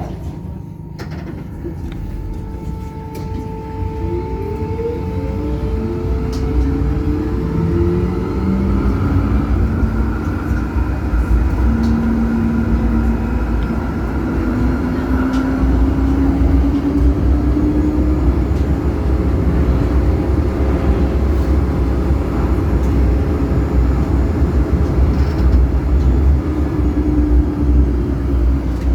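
Electric tram pulling away and accelerating: its traction motors give several whining tones that rise in pitch over about fifteen seconds, while the rumble of the wheels on the rails builds up and then runs steadily.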